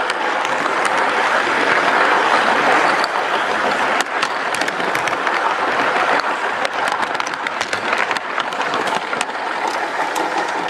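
Rolling noise of a garden-scale model train, heard from a camera riding on it: a steady rattling hiss of wheels on the track, with frequent sharp clicks.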